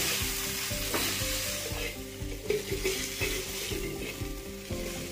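A small steel pot knocking and grinding roasted chillies and garlic against a hot iron griddle, with metal scraping on iron in irregular strokes over a sizzle of oil.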